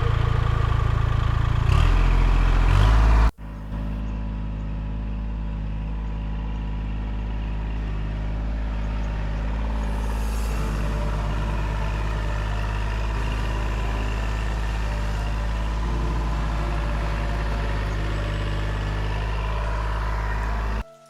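Background music ends abruptly about three seconds in, followed by the steady running of a Kubota L2501 tractor's diesel engine.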